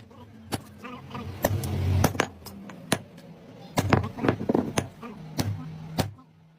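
Irregular sharp knocks and clicks of tools and metal being handled on a workbench, over a low hum that comes and goes; the sounds stop shortly before the end.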